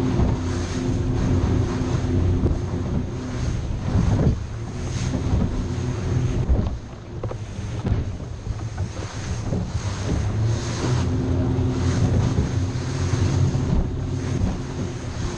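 Cobia 237 center console running under way: its outboard engine drones steadily under loud wind buffeting the microphone, with the hull slapping sharply through waves a few times and spray hissing.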